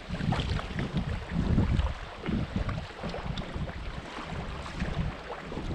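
Wind buffeting the microphone in uneven gusts, with faint splashing of a kayak paddle dipping into shallow water.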